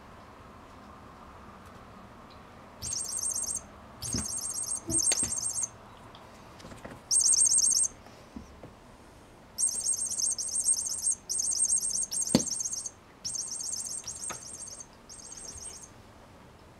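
Bursts of high, rapidly pulsing electronic chirping from the cat's toy mouse, about ten of them of half a second to a second and a half each, with short gaps between. A few knocks of the cat's paws and body on the wooden floor are mixed in, the loudest about twelve seconds in.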